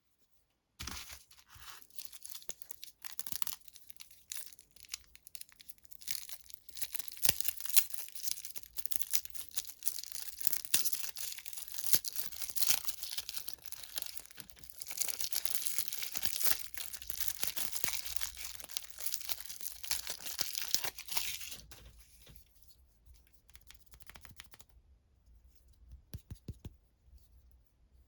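Plastic candy wrapper being torn open and crinkled by hand, a close, busy crackling that dies down about 22 seconds in, with a few small crinkles near the end.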